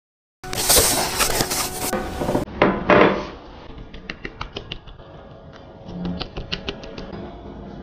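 Packing tape and cardboard being torn open on a parcel for about two seconds. Then a wooden toothpick repeatedly pricks the skin of raw chicken wings on a wooden chopping board, making a quick run of small clicks.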